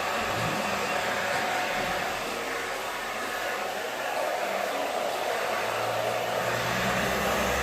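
Handheld hair dryer blowing steadily on salon-styled hair, with a low hum joining about five and a half seconds in.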